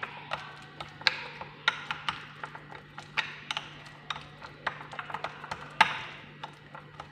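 A spoon clicking and scraping against a small bowl, stirring a turmeric and egg-yolk face-mask paste. It makes irregular sharp clinks, a few a second.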